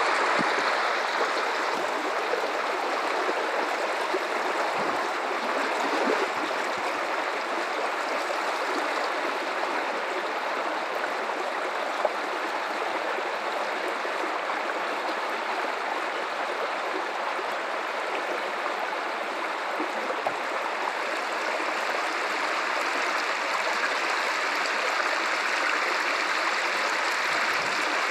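River water running over rocks: a steady, even rush with a light gurgle.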